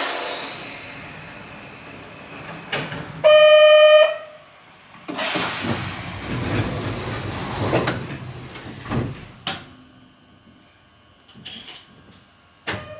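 Narrow-gauge train on the Sangi Railway Hokusei Line: a sudden rush of noise that fades, then one short horn blast about three seconds in, the loudest sound. The train's running noise and a series of clunks and knocks follow.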